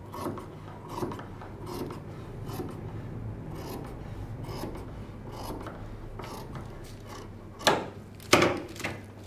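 Tailor's shears cutting through a heavy printed dress fabric, trimming off the selvage in a run of rasping snips about one a second, with two louder, sharp clicks near the end.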